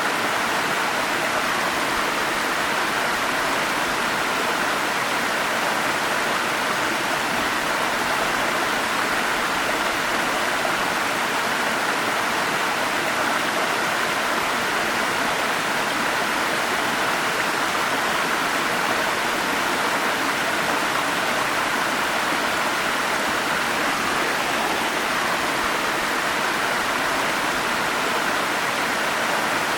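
Forest stream flowing: a steady, unbroken rush of water that holds an even loudness throughout, with most of its energy in the middle of the range.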